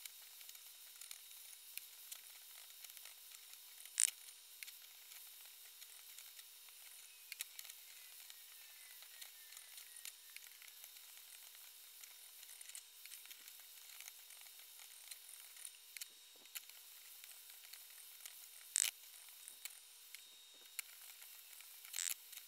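Minced onion sizzling softly in a frying pan over medium-low heat as a spatula stirs it, being sautéed toward caramelized brown. Three sharp knocks of the spatula on the pan stand out: about four seconds in, past the middle, and just before the end.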